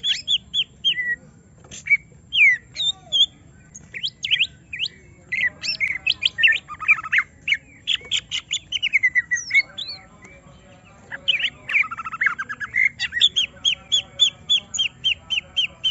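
Greater green leafbird (cucak ijo) singing an agitated, fast, varied song of quick whistled sweeps and chatter, ending in a run of rapid repeated notes. This is the fired-up 'emosi' song of a bird being provoked by a rival.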